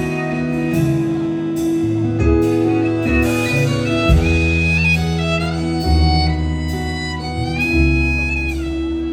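Live country band playing an instrumental passage: a sliding high lead line over sustained guitar chords, bass and a steady drum beat.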